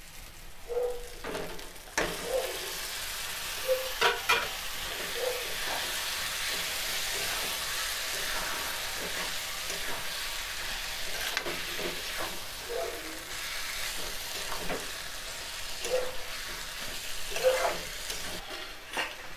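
Raw mutton pieces sizzling in hot oil and masala in a kadai, stirred with a metal spatula that scrapes and clinks against the pan. The sizzle comes up about two seconds in and stays steady.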